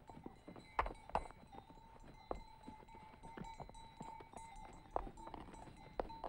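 Pack horses and mules laden with firewood plodding over stony ground, with irregular clopping and knocking of hooves on stones.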